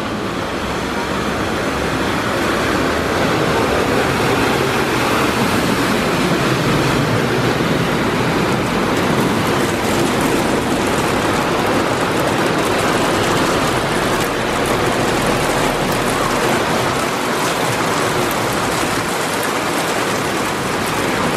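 Steady rush of rain and water as a bus and cars drive through deep floodwater, their tyres throwing up spray.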